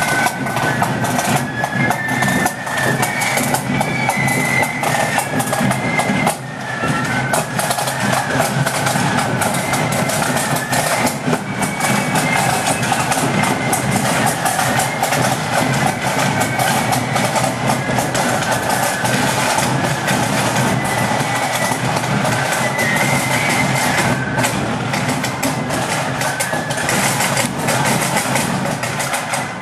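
Marching flute band playing a tune: a high flute melody over rapid snare drumming and bass drum beats.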